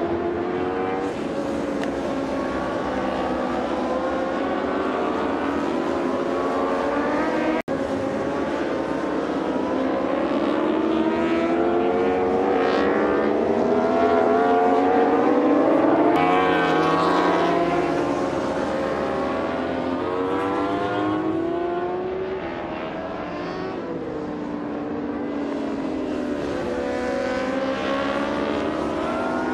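Endurance-racing superbikes running at high revs around the track, several engines at once, their pitch rising and falling as they pass. The sound is loudest about halfway through and has a momentary break about seven seconds in.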